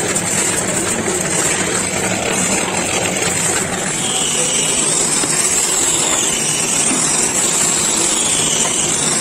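Power tools running steadily on wood: a drill boring into a board, then a hand-held sander with a round abrasive wheel working the edge of a wooden panel, with a whine that rises and falls from about four seconds in.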